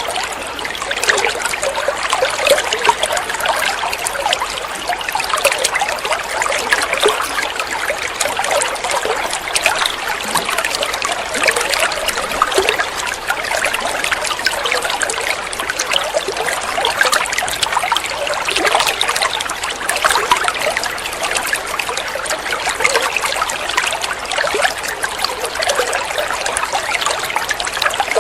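Water running and trickling steadily, an unbroken splashing babble.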